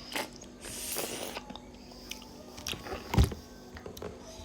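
Close-miked eating sounds from cooked beef trotter: wet chewing clicks and sucking at the meat and bone, with one louder knock about three seconds in.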